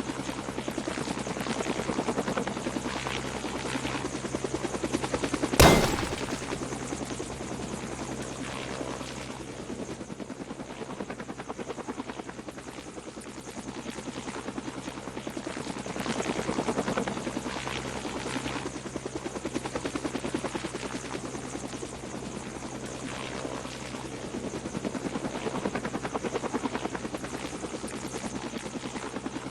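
Blizzard wind buffeting the microphone in gusts, a rough fluttering noise that swells and eases every few seconds. A single sharp knock about six seconds in.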